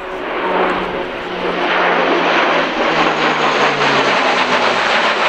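Airbus A400M's four Europrop TP400-D6 turboprop engines and propellers running loud as the aircraft flies past. It grows louder over the first couple of seconds, and a low propeller hum falls steadily in pitch as it goes by.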